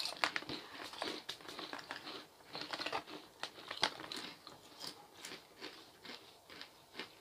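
Crisps being bitten and chewed with irregular short crunches, mixed with the plastic crisp packet crinkling.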